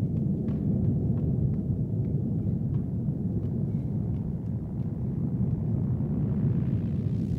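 Steady low rumble of a car cruising at highway speed, heard inside the cabin: tyre and engine noise from the road, with faint ticks and a hiss building near the end.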